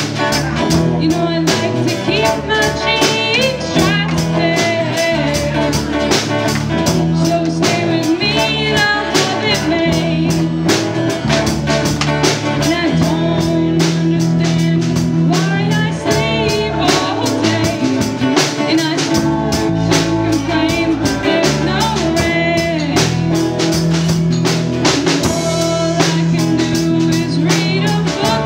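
Live rock band playing with electric guitars and a drum kit keeping a steady beat.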